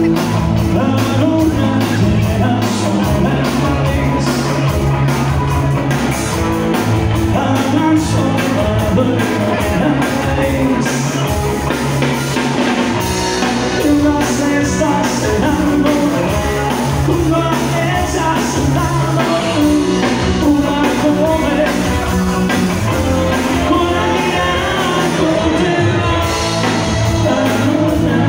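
A live band playing loud amplified music with a singing voice, a strong bass line and a steady beat, heard in the room with the band.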